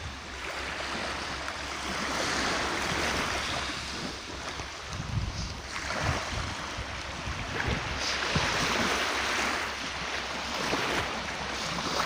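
Small sea waves washing up onto a shell-grit beach, the hiss of the surf swelling and fading every few seconds. Low wind buffets on the microphone now and then.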